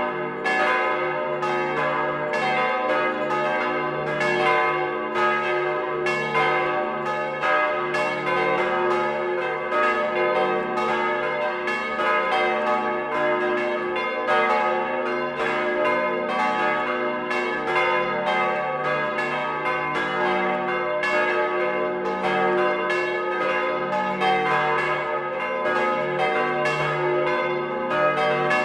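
Several bronze church bells cast in 1949 by Petit & Gebr. Edelbrock, swinging and ringing together in a dense, steady peal heard close up in the belfry, strikes overlapping several times a second over a long ringing hum.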